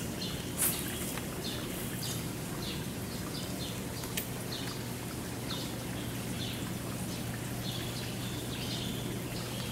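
Birds chirping outdoors, short high chirps repeating again and again over a steady low background hum. A brief sharp noise comes just after the start.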